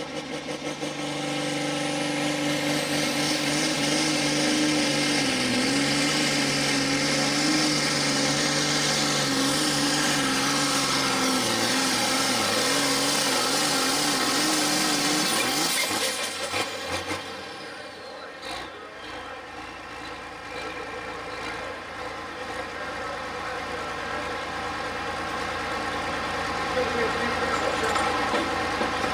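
Turbocharged diesel engine of a John Deere Pro Farm pulling tractor running hard under load while dragging the weight-transfer sled, its pitch wavering up and down. About 16 seconds in the engine is throttled back at the end of the pull and settles to a lower, steadier run.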